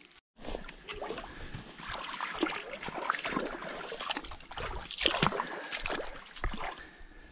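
Water splashing and sloshing in a shallow creek, a quick irregular run of splashes with a few sharper knocks.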